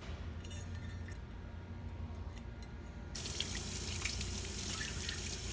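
Water from a utility-sink tap splashing over a sheet-metal transformer cover as it is rinsed, the splashing getting much louder about three seconds in when the cover is held under the stream.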